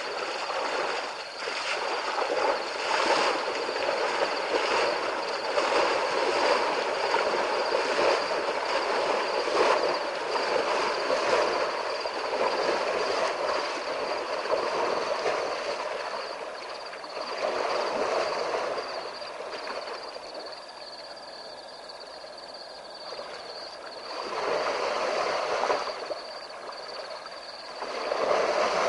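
African elephant wading through a river: water splashing and sloshing in uneven surges around its legs, easing off about two-thirds of the way in and picking up again near the end.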